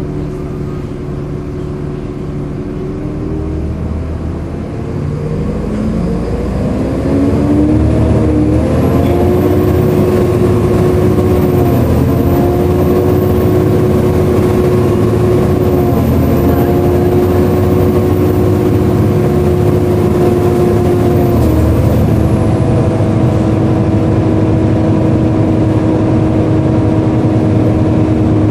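Volvo B7LA bus running, with a loud hoover-like whine from its cooling fan. The whine rises in pitch and loudness over the first several seconds, then holds a steady pitch, dipping briefly a few times.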